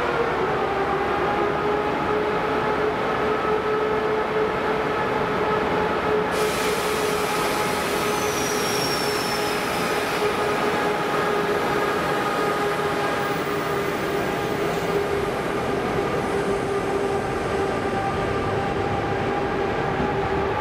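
An EP2K DC electric locomotive pulling a passenger train out of the station, passing close by. It gives a steady electrical hum of a few held tones over the rolling noise of wheels and carriages. A hiss joins about six seconds in, and a brief high wheel squeal comes a little later.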